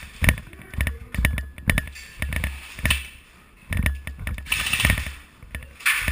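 Footsteps thudding on a hard floor every half second or so, with sharp clicks and clatter of gear on a moving player, some clicks in quick clusters.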